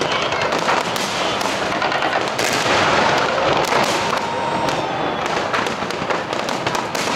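Large aerial fireworks display: many shells bursting in rapid, overlapping succession, giving a dense continuous crackle of small reports.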